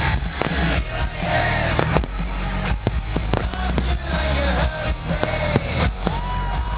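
New Year's fireworks and firecrackers banging many times, with several whistling tones that glide and hold, over loud music with a heavy bass.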